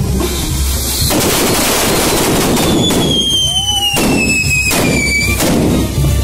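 A firework frame spraying sparks: continuous crackling and hissing, with a few sharp bangs. A whistling firework sounds from about halfway through, its pitch falling steadily for about three seconds.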